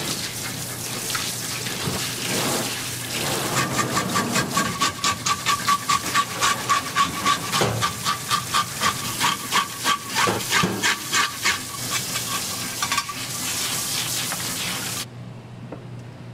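Tap water running hard from a faucet onto a whole salmon in a stainless steel sink, with rhythmic rubbing strokes, about three a second, as a hand scrubs the fish under the stream, and a thin steady whistle through the middle. The water shuts off suddenly near the end.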